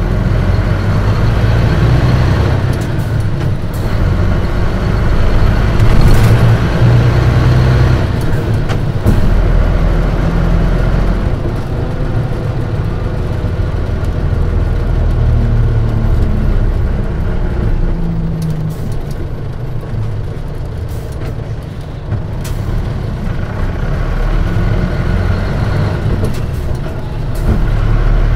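Mitsubishi Fuso Aerostar city bus with a manual gearbox, heard from inside the cabin while running. The engine note rises and falls several times as it pulls, shifts and eases off, with a few short sharp air-brake sounds.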